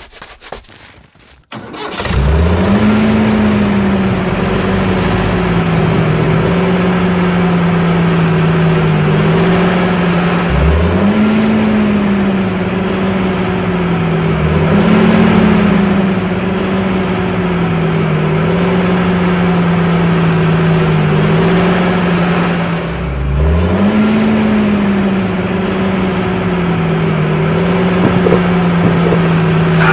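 Tractor engine running steadily from about two seconds in. Its pitch climbs and eases back four times as it revs.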